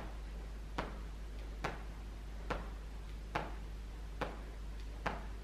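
Sneakers landing on a hard floor as front kicks are done on alternating legs: a short tap a little faster than once a second, in a steady rhythm.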